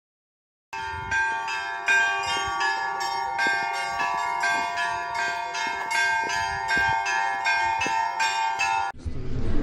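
Church bells ringing, a quick run of strikes about two to three a second with several bells sounding together, which stops abruptly near the end.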